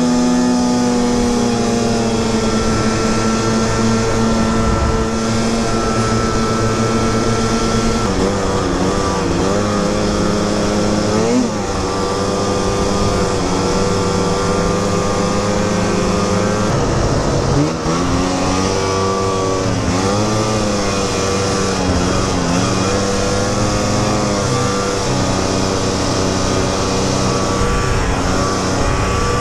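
Snowmobile engine running under way, heard from the sled. It holds a steady pitch at first, then from about eight seconds in it rises and falls again and again as the throttle is worked.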